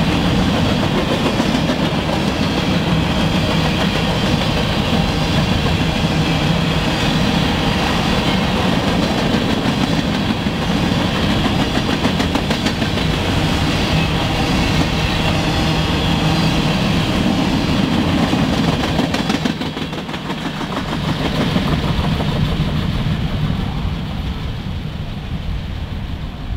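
Covered hopper cars of a CSX grain train rolling past, the wheels rumbling steadily on the rails. About twenty seconds in the sound drops, swells once more and then fades as the last cars go by.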